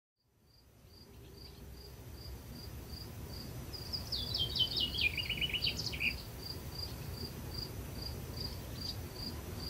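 Outdoor rural ambience fading in: a high, short chirp repeats about twice a second, and a songbird sings a quick descending run of notes about four to six seconds in, over a low steady rumble.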